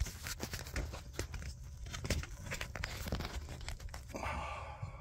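Handling noise as a camera is set down and repositioned: fingers rubbing and bumping against it, a steady rustle broken by many small clicks and knocks. The rustle thickens briefly near the end.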